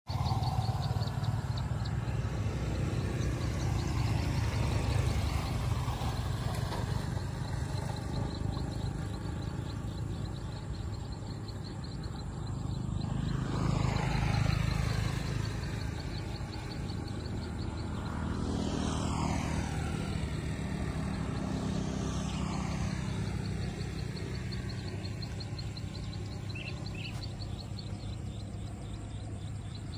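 Motorbikes passing along a dirt road, the loudest swelling up about halfway through, over a steady low rumble. A faint, rhythmic high-pitched chirping of insects runs underneath.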